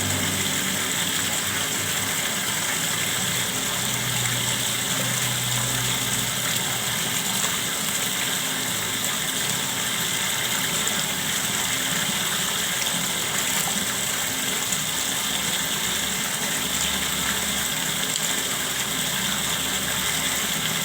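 Clear water flowing and gushing steadily, an even rushing sound.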